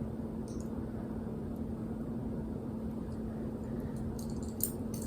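Steady low room noise with a faint hum, broken by a few small clicks, the sharpest about four and a half seconds in.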